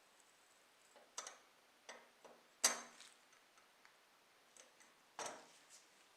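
Small hard parts or tools clicking and tapping on a hard surface: about five sharp, irregularly spaced clicks, the loudest near the middle.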